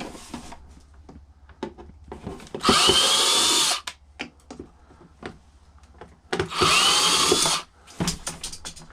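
Cordless screw gun run twice, about a second each time, its motor whine rising as it spins up and then holding, while backing screws out of a small karaoke machine's plastic casing. Light clicks and knocks of handling come between and after the runs.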